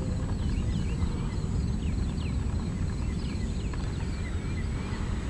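Wind buffeting the microphone in a rough, steady rumble, with many small birds chirping in short, quick calls throughout.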